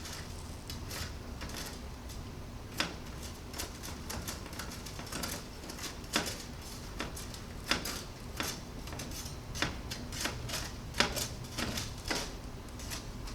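Asphalt mix being spread and levelled in a metal ignition-furnace sample basket: irregular scrapes and sharp clicks of aggregate and tool against the basket, over a low steady hum.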